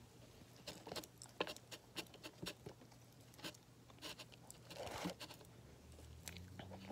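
Close, faint crunching and crackling of baked cornstarch chunks being chewed: scattered sharp clicks, with a short rustling stretch about five seconds in.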